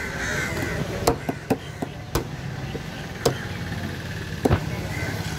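A heavy knife chopping through fish flesh and bone onto a wooden table, striking about seven times at an irregular pace, with two strikes close together near the end.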